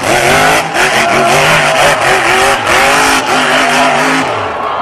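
Tube-frame off-road buggy's engine revving hard, its pitch climbing in steps and dropping back several times as the big tyres spin and fling dirt, with a rush of noise from the spray over it. The engine note falls away about four seconds in.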